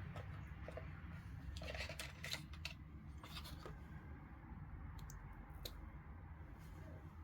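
Scattered light clicks and scrapes of small parts being handled, bunched in the first half, over a steady low hum.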